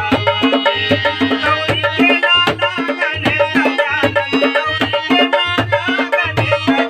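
Instrumental music led by tabla playing a fast rhythm, with deep bass strokes of the bayan coming in regular pulses and a melody instrument playing over it.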